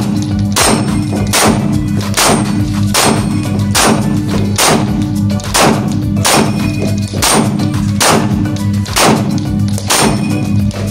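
CZ P-10 SC pistol fired in a steady string of about fifteen shots, one to two a second, at steel plates that clang and ring when hit. The shots echo in an indoor range, over a steady low drone.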